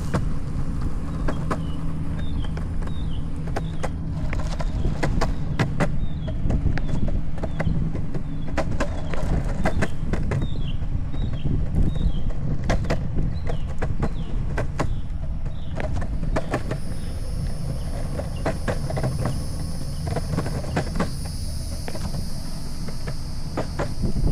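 Longboard wheels rolling on a concrete sidewalk: a steady low rumble, with sharp clicks as the wheels cross the joints between the slabs.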